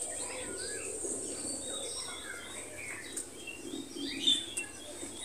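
Small birds chirping and twittering in many short, varied calls, over a steady high-pitched whine.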